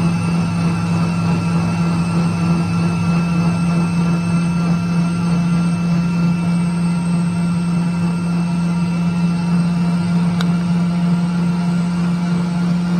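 Emco Unimat SL mini lathe's small electric motor and spindle running steadily with a constant hum while a centre drill is fed by hand into the turning workpiece. One faint tick about ten seconds in.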